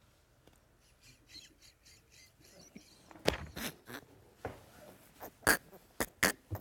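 Quiet at first, then from about three seconds in a run of irregular, sharp clicks and knocks, several to a second, with a few louder than the rest.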